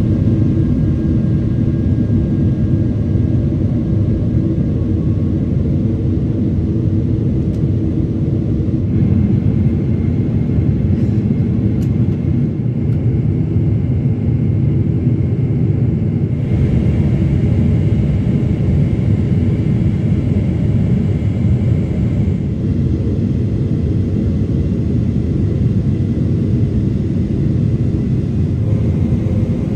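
Cabin noise of a Boeing 777-300ER on approach, heard from a window seat over the wing: a steady, dense rumble of airflow and the GE90 turbofan engines. The tone shifts slightly a few times.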